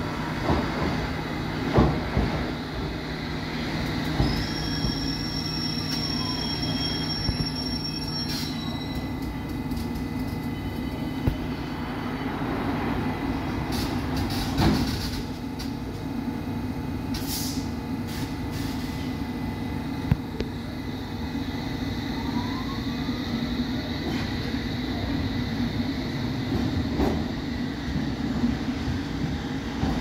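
London Underground S Stock train running in the station: a steady rumble with wheel squeal, and a high squealing tone a few seconds in. A motor whine falls in pitch near the start and rises again in the last third, with a few short knocks along the way.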